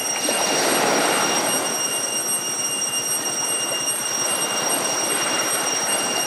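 Slurping and sucking at a grilled eggplant, loudest about a second in and again near the end, over a steady high-pitched whine.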